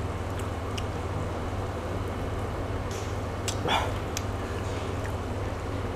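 A man tasting a very spicy sauce, over a steady low hum, with faint clicks of chewing and chopsticks. About three and a half seconds in he lets out a short strained whimper as the heat hits.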